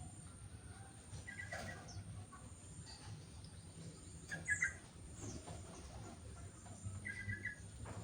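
Sooty-headed bulbul calling: three short calls about three seconds apart, over a low steady hum.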